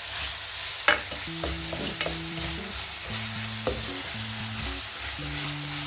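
Onions and peppers sizzling in hot oil in a pot while being stirred, the utensil clacking against the pot, most sharply about a second in.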